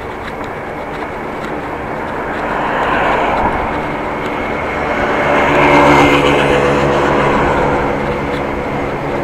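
A motor engine's steady hum with road noise, swelling to its loudest about six seconds in and then easing off, as a vehicle passes.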